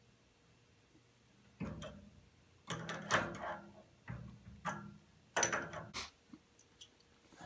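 Metal parts and hand tools clattering and scraping as a gas water heater's burner access is taken apart: a run of knocks and scrapes starting about a second and a half in and lasting some four seconds, then a couple of light clicks.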